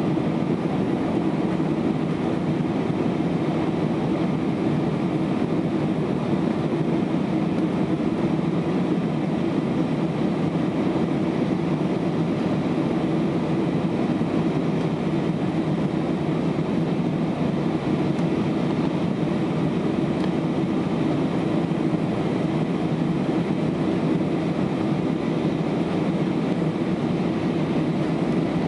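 Steady cabin noise inside an Airbus A319 climbing out after takeoff: the jet engines' even low hum blended with rushing airflow over the fuselage.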